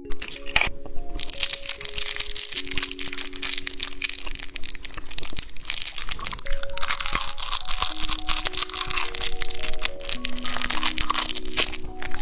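Close-up crackling and crunching from candy being handled and eaten, continuous throughout, over a slow, simple background music melody.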